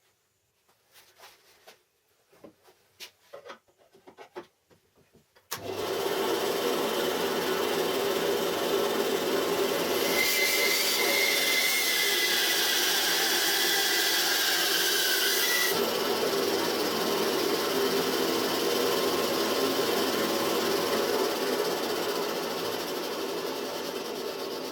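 A few light clicks and knocks, then about five seconds in a homemade band saw starts suddenly and runs steadily. From about ten to sixteen seconds in, a harsher hiss with a thin squeal joins as the blade cuts through a workpiece. The saw keeps running after the cut, easing off slightly near the end.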